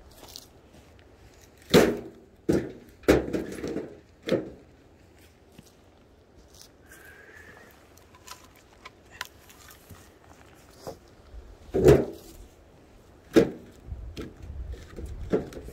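A handful of sharp wooden knocks and thuds in two clusters, like wood being struck or split by hand.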